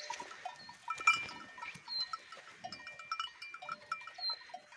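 Bells on grazing Simmental cows clinking irregularly as the cows move and crop grass: many short ringing notes at several different pitches, overlapping.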